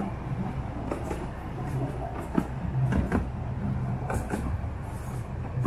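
Miniature railway train running: a steady low engine hum with wheels clicking and knocking over the rails.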